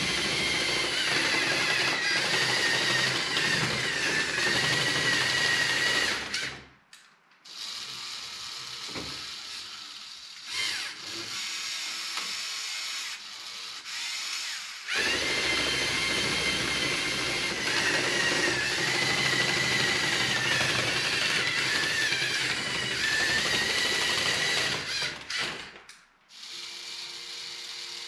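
Electric motors and gear trains of a LEGO Technic remote-controlled tracked straddle carrier running as it drives and handles a container: two long stretches of steady high whine, with quieter gear whirring in between. The whine cuts off near the end.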